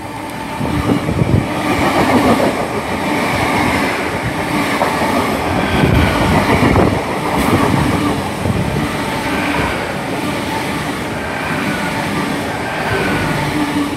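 Two coupled Class 800 intercity trains passing through the station at speed without stopping: a sustained rumble of wheels on rail and running gear, building up about a second in, with repeated knocks from the wheels and a steady hum from the train.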